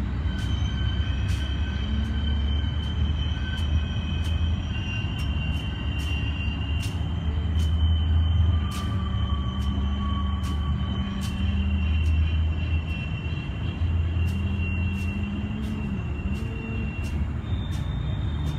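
Sharp clicks of a sharpened machete blade cutting through hedge twigs, coming every second or so, over a steady low rumble and long, high whining tones.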